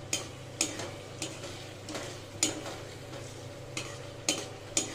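Metal spatula scraping and knocking against a metal kadai while a thick mustard-poppy fish gravy is stirred and fried down, with the gravy sizzling underneath. The knocks come roughly every half second, with a pause near the middle.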